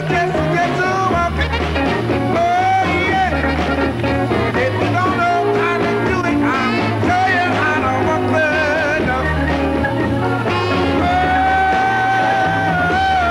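A male rhythm-and-blues singer with his band, singing over a steady, pulsing bass beat. A long held note sounds near the end.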